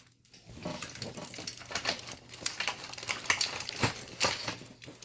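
Metal padlocks and lock-picking tools clinking and knocking as they are handled and gathered up after falling to the floor: a run of irregular small metallic impacts.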